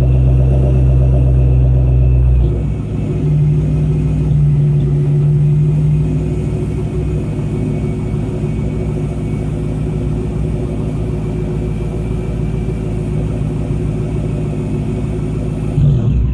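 Supercharged 4.6 L DOHC V8 of a 1997 Ford Mustang Cobra running through an SLP Loudmouth exhaust, a deep steady exhaust note. It is louder for the first couple of seconds, settles to a steady level, and has a brief louder blip just before it cuts off.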